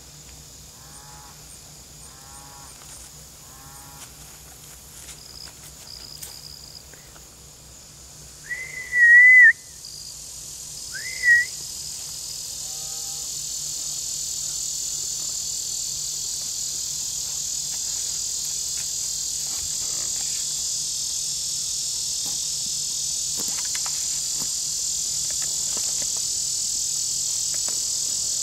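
A loud, high animal call about a third of the way in, with a shorter one a couple of seconds later and a few short chirping calls before them; from about ten seconds in, a steady chorus of crickets swells up and carries on.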